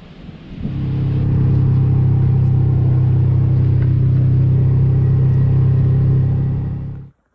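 A vehicle engine running at a steady, unchanging pitch, loud and close, starting about a second in and cutting off suddenly near the end.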